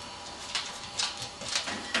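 A dog's claws clicking on a wooden floor as it walks, a few irregular taps about two a second.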